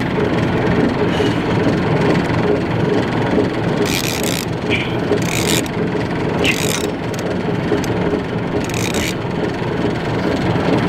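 Boat engine running steadily as a dense, loud drone. Short hissing bursts come about four, five, six and a half and nine seconds in.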